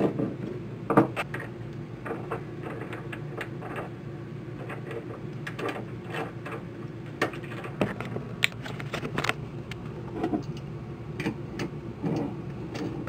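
Irregular metallic clicks and taps of a large nut being threaded onto a through-hull fitting and tightened with an adjustable wrench, over a steady low hum.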